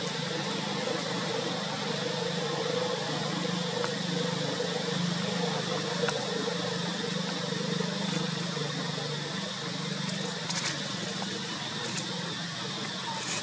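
Steady outdoor background noise: a continuous hiss with a low, even hum under it and a few faint clicks.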